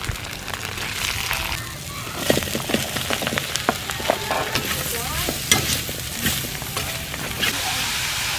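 Food sizzling as it fries in a pan and is stirred, with the utensil clicking and scraping against the pan again and again. The sizzle turns steadier near the end.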